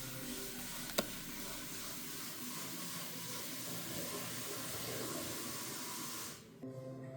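A steady hiss-like noise with a single sharp click about a second in; the noise cuts off suddenly near the end, and background music takes over.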